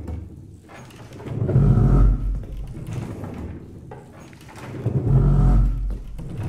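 An experimental percussion instrument being played: a low, rumbling groan that swells up and dies away twice, about three and a half seconds apart, with a faint high ring riding on each swell.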